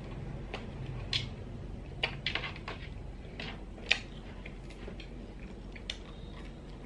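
Small, scattered clicks of snail shells knocking against each other and the metal tray as cooked sea snails are picked up and handled, with a quick run of clicks about two seconds in and the sharpest click about four seconds in.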